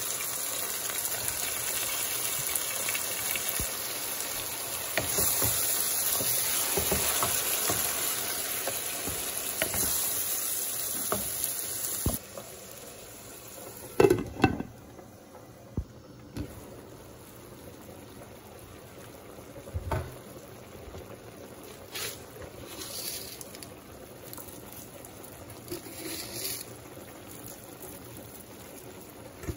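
Raw mutton pieces sizzling loudly in a pan of onions and tomatoes in hot oil. About twelve seconds in it drops abruptly to a quieter bubbling simmer with scattered pops, and a sharp clink of a glass pan lid comes about two seconds later.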